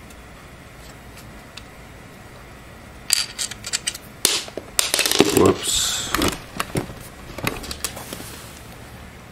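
A burst of clicks, knocks and clatter starting about three seconds in, from a DVD drive in its black drive-bay bracket being handled and set down on a wooden floor, with a small mounting screw dropped onto the floor.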